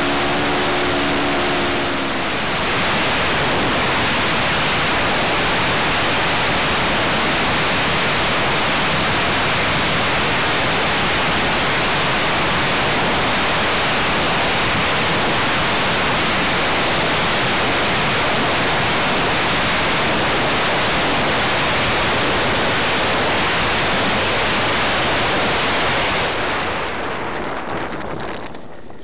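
Steady engine tone from an RC model plane's OS 95V engine for about two seconds, then it cuts out, leaving only a loud wind rush over the onboard microphone as the model glides in dead stick. The rush fades away near the end as the model slows and lands.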